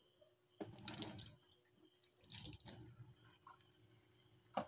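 Water from a tap splashing briefly into a stainless steel kitchen sink, in two short bursts, followed by a sharp click near the end.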